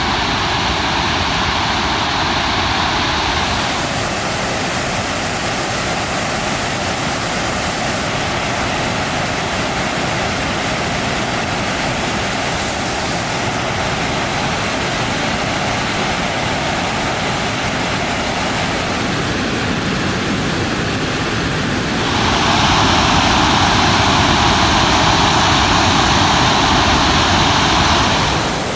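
Waterfall rushing steadily down a narrow rock canyon: the upper falls of Englishman River. It grows louder and brighter for the last several seconds.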